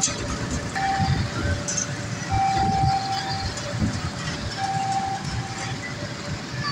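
Railway level-crossing warning alarm sounding, alternating between a higher and a lower tone, over the engine hum of motorcycles and cars in traffic.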